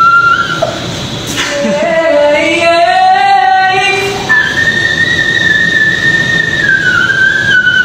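A man singing high notes in whistle register. A thin, high held note ends about half a second in. A fuller, lower sung note rises slightly from about a second and a half. From about four seconds a long thin whistle-register note is held, then slides down near the end.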